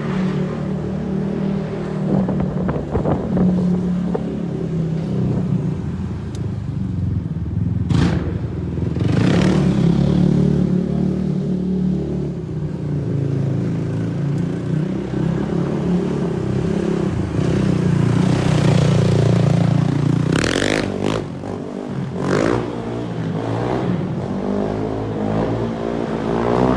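A 450-class sport quad's four-stroke single-cylinder engine running and revving up and down as it is ridden, with a few brief whooshes.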